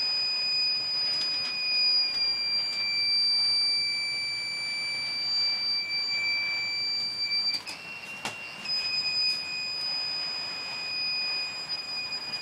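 UPS alarm buzzer sounding continuously as a steady high-pitched tone, dipping slightly in pitch about two seconds in and stepping briefly higher about eight seconds in. It sounds while the unit is loaded with everything plugged into it, which the owner takes for an overload.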